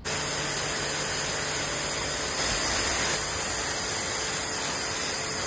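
Pressure washer spraying a wide fan of water onto a hanging motorcycle riding jacket, a steady loud hiss.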